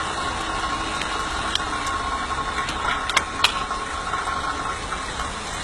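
Electric draught fan running on a miniature coal-fired steam locomotive, a steady rushing noise with a thin whine that fades near the end. A few sharp metallic clinks in the middle come from coal being shovelled into the firebox.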